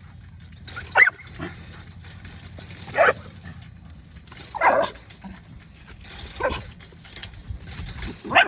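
A dog barking, about five single barks spaced a second or two apart.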